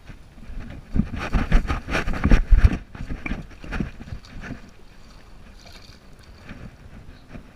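Heavy footsteps and rustling as someone pushes down through grass and brush, loudest in the first few seconds, followed by a light splashing as a bass is lowered into pond water and released.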